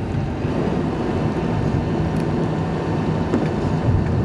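Excavator engine running steadily with a low rumble.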